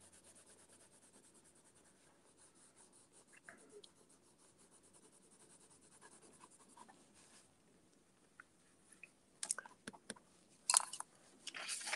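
Coloured pencils hatching on paper: a fast run of faint strokes, several a second, that fades out, then a few louder, sharper scratches near the end.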